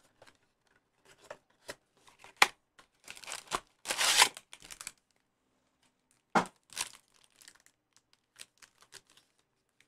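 Cardboard blaster box of trading cards being torn open and its foil-wrapped packs pulled out: scattered light clicks, then rustling and tearing about three to four and a half seconds in and again around six and a half seconds.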